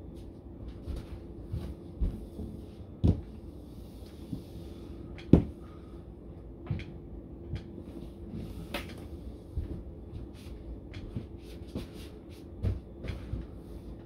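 Irregular knocks and thumps of a person exercising: hands planting on a kitchen countertop and feet striking the floor. The loudest knock comes about five seconds in, over a faint steady hum.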